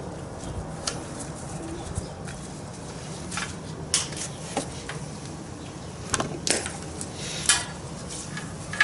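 Scattered clicks and light metallic clatter of hand-work on a motorcycle, as the oxygen sensor and its wiring are moved out of the way. The clicks come singly every second or so, the sharpest near the end, over a steady low hum.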